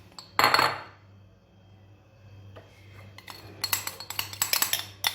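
Kitchen utensil clinking and scraping against a dish while melted chocolate glaze is handled: one short scrape about half a second in, then a run of quick clinks near the end.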